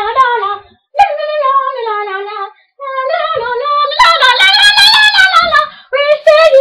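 A high-pitched voice singing a wavering melody in phrases, breaking off briefly twice and getting louder from about four seconds in.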